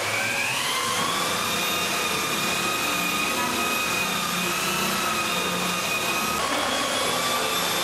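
Handheld electric drill with a paddle mixer stirring gypsum investment plaster in a bucket: the motor spins up at the start, then runs with a steady whine. Its pitch shifts slightly about six seconds in and dips near the end.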